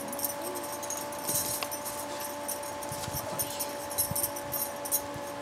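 A steady, even hum from the battery mechanism in a reborn baby doll's chest, switched on just before and running throughout. Over it come the light clinks of bangle bracelets and the rustle of hands handling the doll's cloth body.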